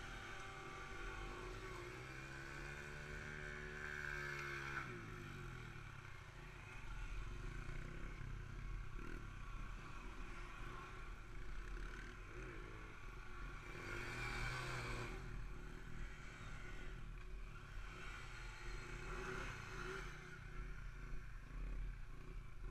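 Motorcycle engines revving and idling during wheelie stunts. One engine revs up and back down from about two seconds in, with further bursts of throttle around the middle and near the end.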